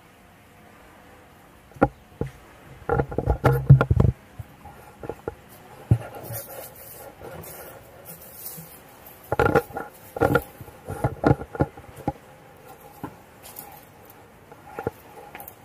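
Scuffs, scrapes and knocks of a hiker's hands, shoes and gear against rock while scrambling down a steep rock face, coming in irregular bursts of sharp clicks and rubbing, busiest a few seconds in and again past the middle.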